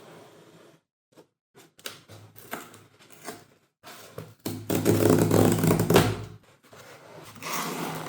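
A smartphone retail box being handled: irregular taps, knocks and rubbing noises, with a longer, louder stretch of rubbing about halfway through.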